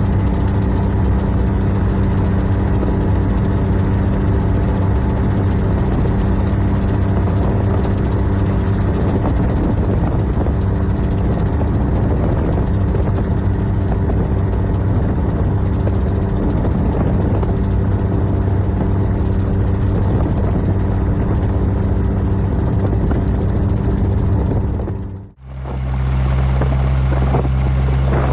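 Helicopter running with a steady, loud drone that holds an even pitch. About 25 seconds in it cuts off abruptly and a different steady drone takes over.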